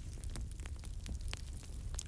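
Campfire burning: a steady low rumble of flames with scattered sharp crackles and pops from the wood, several a second.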